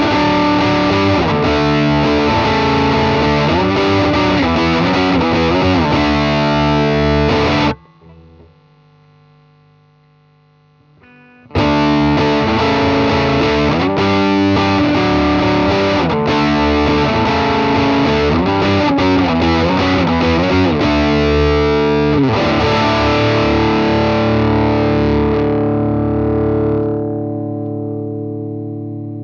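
Electric guitar with a P90 bridge pickup played through a DigiTech Bad Monkey overdrive pedal: distorted riffing. It cuts off sharply about a quarter of the way in, starts again after a few seconds' pause, and ends on a held chord that rings out and fades.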